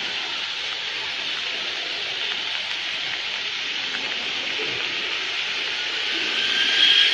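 Steady hiss of rain falling on a wet street and pavement. Near the end a thin, high steady whine comes up over the rain.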